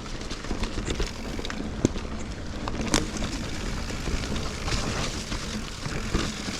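Mountain bike riding over a dirt woodland singletrack: a steady rush of tyre and trail noise, with frequent sharp knocks and rattles as the bike goes over bumps, roots and stones. The loudest knock comes about three seconds in.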